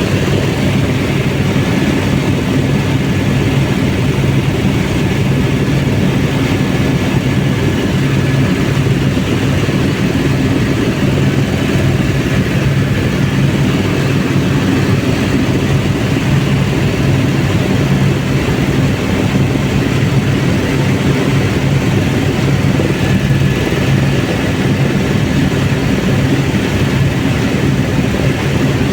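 Helicopter in flight: steady, loud engine and rotor noise that keeps on without a break.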